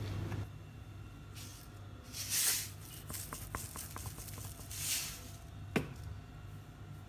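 A utensil stirring dry flour in a glass bowl: two soft swishes through the flour, small ticks of the utensil against the glass, and one sharper tap near the end.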